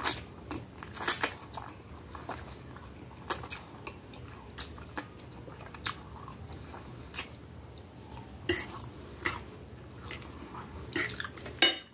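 A person chewing and slurping spaghetti in tomato sauce, close up. Sharp wet smacks and clicks come every second or so, loudest about a second in and near the end.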